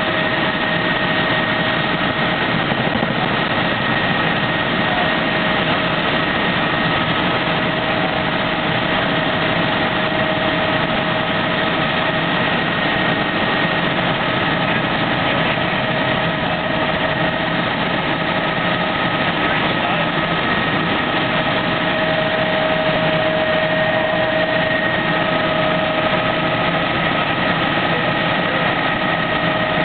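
Helicopter in flight heard from inside the cabin: a steady, unchanging engine and rotor drone with a few steady whining tones over it.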